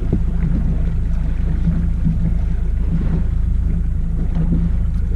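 Boat motor running steadily at trolling speed, a constant low drone.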